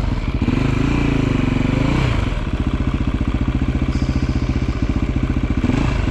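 Off-road motorcycle engine idling, settling into an even, rapid firing beat about two seconds in.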